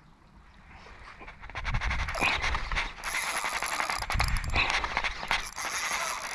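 Spinning fishing reel clicking rapidly as line works against a hooked fish, with a couple of low bumps from handling.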